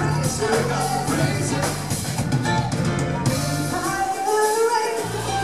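Live band playing: a woman singing lead over a drum kit and electric bass guitar. The bass and low end drop out for about a second near the end.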